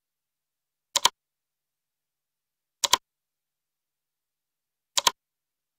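Three short double clicks about two seconds apart, with dead silence between: the Fairlight CMI iPad app's button-press sound effect as its on-screen voice-select buttons are tapped.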